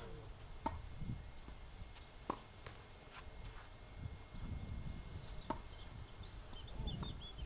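A few separate sharp knocks of a tennis ball, about three spread out, over a low outdoor rumble, with faint high chirps near the end.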